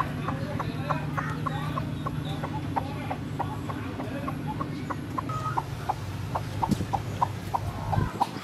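A hen sitting on her eggs in the nest makes a steady low clucking grumble that stops about eight seconds in. Over it runs a regular series of short, high pips at about three a second.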